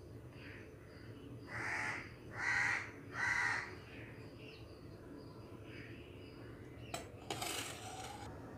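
A crow cawing three times in quick succession, followed near the end by a sharp click and a short scraping rustle.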